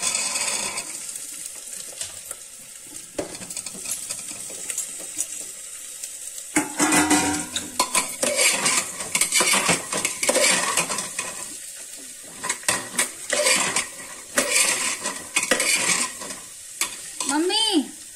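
Onion and chickpeas frying and sizzling in a pan of hot oil. From about a third of the way in, a metal spoon stirs and scrapes against the pan in loud, irregular strokes.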